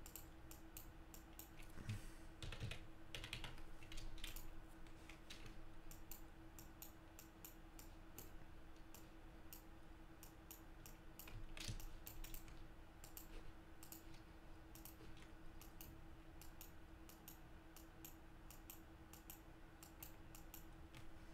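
Faint, irregular clicking of a computer keyboard and mouse being worked, over a steady low hum.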